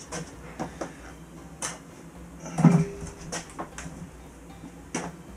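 Porcelain toilet being lifted and moved by hand: a scatter of light knocks and clunks, with one louder low thud about two and a half seconds in.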